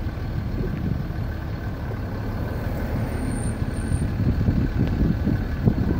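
A vehicle driving along a road, heard from inside: steady low engine and road rumble that grows louder and more uneven near the end.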